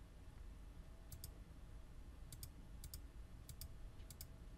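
Computer mouse button clicking faintly, five times in pairs of two quick clicks. The clicks start about a second in and come every half second to a second after that, as on-screen input switches are toggled.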